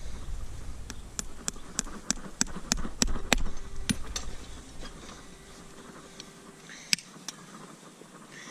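Farrier's hammer tapping steel nails into a horseshoe on a mule's hoof: a quick run of sharp taps, about three a second, for a few seconds, then a few scattered taps.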